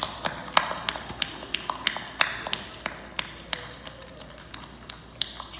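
Hard-soled shoes stepping on a wooden stage floor, heard as irregular sharp clicks about two or three times a second.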